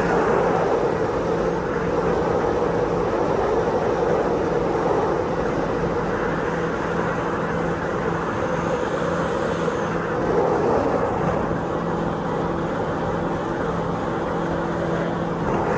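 Donzi ZR powerboat's engines running at a steady pitch under a broad rushing noise.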